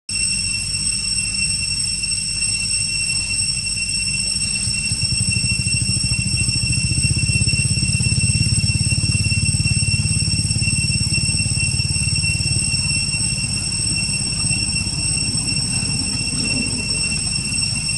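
Steady outdoor background: an even high-pitched whine of several held tones over a continuous low rumble that grows louder through the middle and eases off again.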